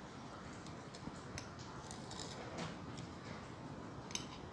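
Metal fork and spoon clicking and scraping lightly against a ceramic plate, a few scattered clicks with the sharpest one near the end.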